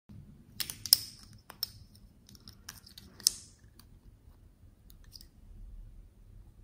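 Small plastic lipstick tubes clicking and clacking as they are handled and a cap is pulled off: a handful of sharp clicks, the loudest about one and about three seconds in.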